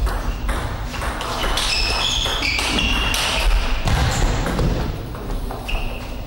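Table tennis rally: the celluloid ball is struck by the bats and bounces on the table in a quick run of sharp clicks, with short high squeaks of shoes on the court floor. The rally ends about four seconds in, with a low thud.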